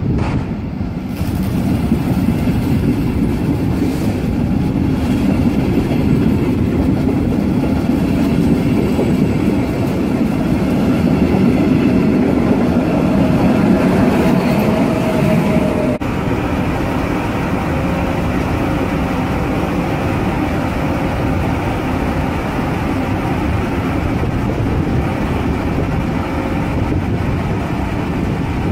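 CFL electric trains running through a station: a double-deck passenger train rolls past, and its electric locomotive passes close with a whining tone at about 14 seconds, the loudest point. Then the sound changes abruptly to a steadier running noise with a faint hum as a CFL Class 3000 electric locomotive approaches.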